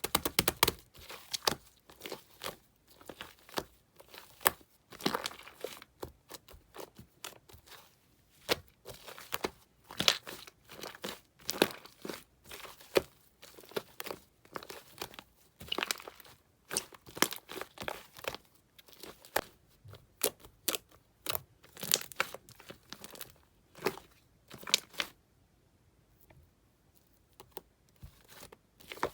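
Fluffy shaving-foam slime being squished, poked and stretched by hand, giving irregular crackling pops and squelches, with a short lull near the end.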